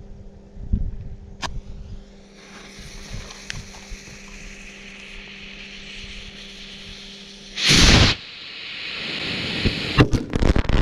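A large firecracker set into a watermelon, its fuse hissing and growing louder for several seconds. About eight seconds in it goes off with one loud bang. More hissing and a rapid crackle of sharp pops follow near the end.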